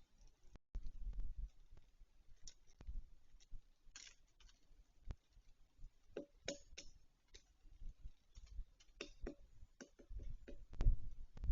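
Black woodpecker pecking at a thick tree bough: irregular single sharp taps and knocks rather than a drumming roll, with dull low thuds now and then, heaviest near the end.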